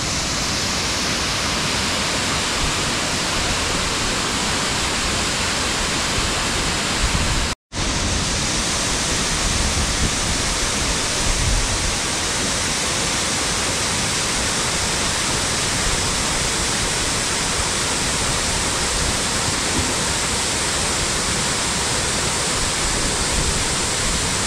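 Steady rush of a jungle waterfall pouring into a plunge pool, with a split-second break to silence about seven and a half seconds in.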